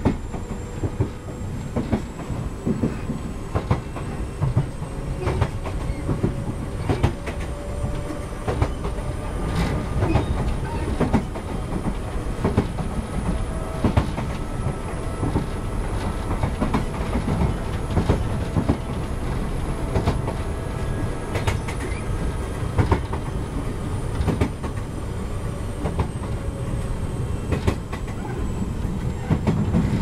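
Toyama Chihō Railway 10020-series resistance-control electric train, riding on ex-Eidan 3000-series running gear, heard from inside the car at speed. A high-pitched running whine climbs and then falls away over the wheel rumble, with repeated clacks from the rail joints.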